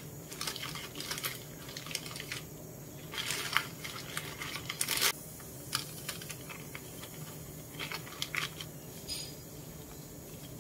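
Thin plastic zip-lock bag crinkling in short irregular crackles and light clicks as hands fill it with crisp biscuits, lay it flat and run along the zip closure.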